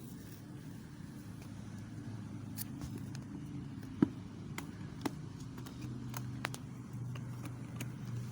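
A steady low engine-like hum, with scattered light clicks and taps and one sharp click about four seconds in.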